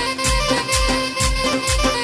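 Amplified Kurdish folk dance music from a live band's electronic keyboard: held melody notes over a steady heavy drum beat of about two to three beats a second, played loud through loudspeakers.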